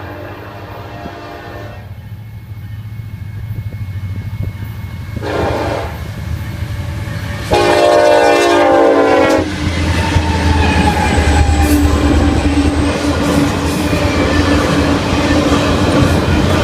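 Diesel freight locomotive horn sounding three blasts, the last the longest and loudest, as the train approaches. Then the lead diesel locomotives pass close by, engines rumbling, with wheels clacking and rattling over the rails.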